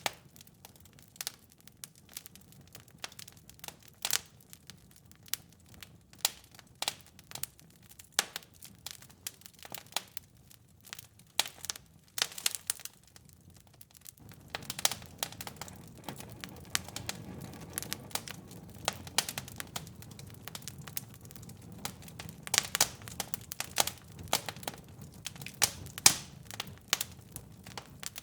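Wood fire crackling in a fireplace: irregular sharp pops and snaps over a soft low rumble of burning flames, and the rumble grows fuller about halfway through.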